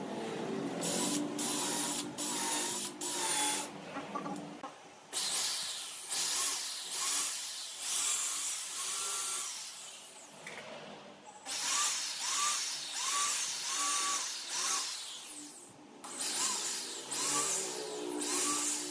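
A handheld power tool running with a hissing, whirring noise, dropping away briefly and starting up again several times.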